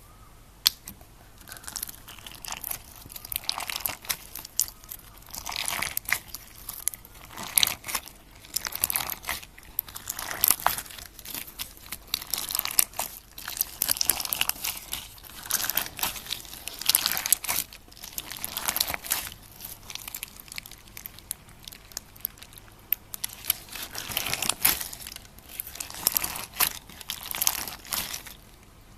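Slime mixed with orbeez water beads being squeezed and pressed by hand: wet crackling and popping with sharp clicks, coming in repeated bursts every second or two.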